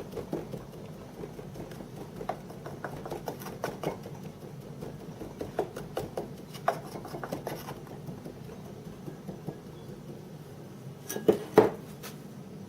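Steady rush of a metal-melting furnace burning in the background, with scattered light metallic clinks and taps and two louder knocks near the end.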